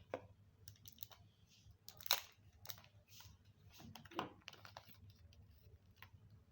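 Handling sounds from a new smartphone and its accessories: scattered small clicks and taps, with two louder rustling scrapes about two seconds and four seconds in.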